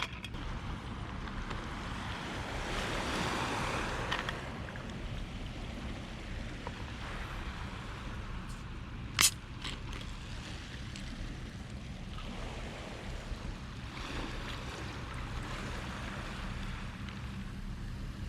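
Small waves washing onto the beach, swelling twice, with a single sharp click about nine seconds in.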